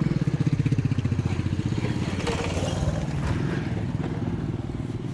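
A motorcycle engine running close by with a rapid, even firing beat, loudest in the first second or so and slowly fading away.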